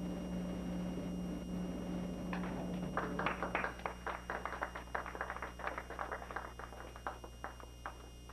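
A small group clapping, starting about two seconds in and thinning out near the end.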